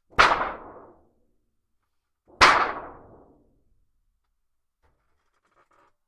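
A thin sheet of metal shaken sharply twice, about two seconds apart, as a homemade thunder sheet: each shake is a sudden loud crash that dies away over about a second.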